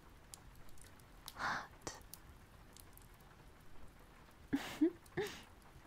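A woman's close-up whispered word, then a few short breathy voice sounds near the end, with faint clicks in the quiet between.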